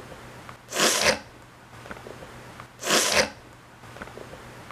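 A person breathing through the nose close to the microphone: two hissing breaths, each about half a second long, about two seconds apart.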